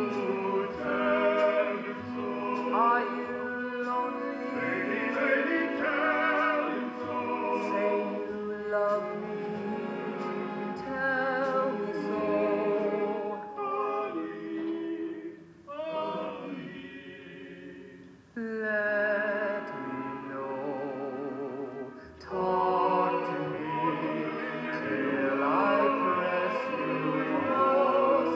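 A small group of men singing the song in close harmony with vibrato, over musical accompaniment. The sound thins out and drops about halfway through, then swells back up.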